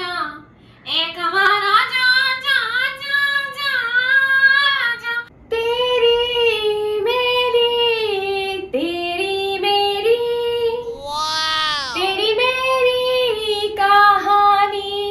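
A young woman singing a slow melody unaccompanied, with long held notes. The singing breaks off briefly about five seconds in, and about twelve seconds in her voice slides steeply down in one swooping run.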